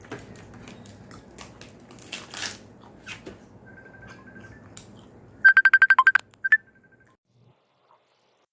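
Phone call tone: a fast run of about ten short, high electronic beeps lasting under a second, then one more beep, after a few seconds of faint clicking and crackling.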